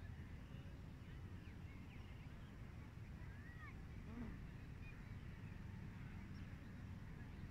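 Faint outdoor ambience: a steady low rumble with a few scattered faint bird chirps.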